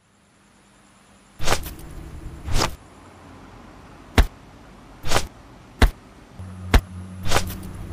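A series of short, sharp swishing or hitting sound effects, about eight of them at uneven intervals and bunching up near the end, over a faint low hum and hiss.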